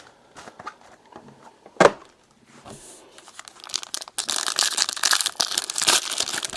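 A few small clicks and one sharp knock about two seconds in, then from about four seconds in a trading-card pack wrapper crinkling and tearing as the first pack is opened.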